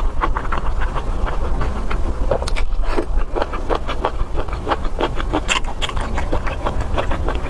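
Eating sounds from a mala xiang guo (spicy stir-fry): chewing and mouth smacks, a quick, irregular run of wet clicks over a low hum.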